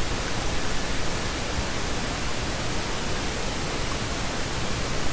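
Steady, even hiss with no distinct events, typical of recording noise or room noise.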